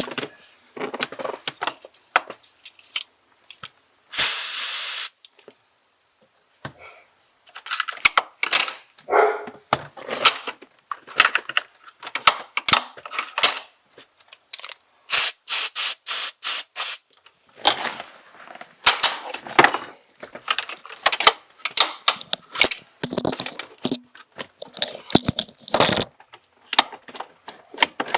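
A short hiss of aerosol lubricant spray lasting about a second, about four seconds in. It is followed by many irregular clicks, clacks and rattles of small plastic and metal car parts being handled and worked.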